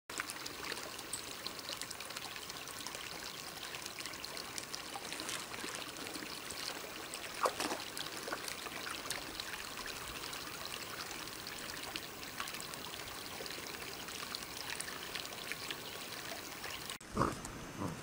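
Shallow stream water trickling steadily, with small splashes and clicks around a dog lying in it. Near the end the water sound cuts off suddenly and two short pitched sounds follow.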